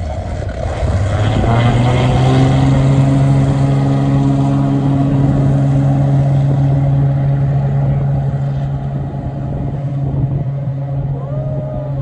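Single-engine floatplane taking off: its piston engine and propeller come up to full power about a second in, then hold a steady, loud drone as it runs across the water on its floats. The sound eases slightly near the end as the plane moves away.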